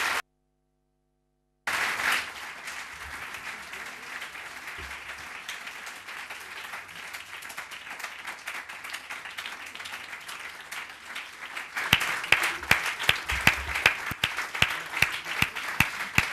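Audience applauding. The sound cuts out for about a second and a half near the start, then the applause runs steadily and grows louder from about twelve seconds in, with sharp individual hand claps close by.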